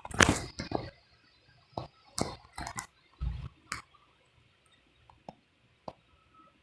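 Irregular sharp clicks and knocks, a dense cluster in the first second and a few more over the next three seconds, one of them a duller thump, then only scattered faint ticks.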